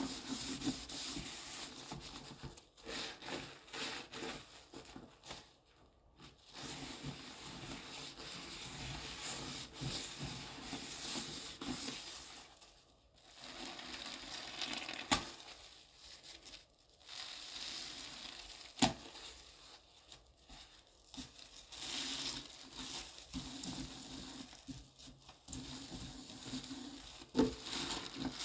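Wet sponge squelching and crackling as it is squeezed and rubbed through a thick paste in a sink, in uneven bouts. Two sharp clicks come in the middle.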